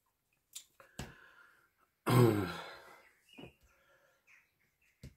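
A woman's breathy sigh, falling in pitch, about two seconds in. Around it are a few light clicks and taps of tarot cards being handled on a wooden desk.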